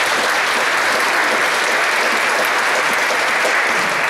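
Room of people applauding, a steady dense clapping at the close of a talk.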